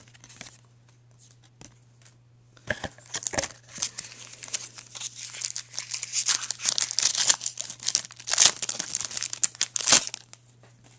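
Trading-card pack wrapper being torn open and crinkled by hand, starting about three seconds in and continuing as dense crackling and rustling until near the end.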